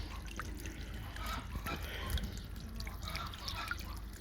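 Small solar-powered fountain spraying water into a pond, the falling water splashing and trickling in many small patters.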